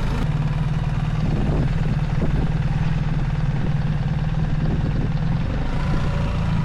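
A motor running steadily with a constant low hum, cut off and resumed just after the start.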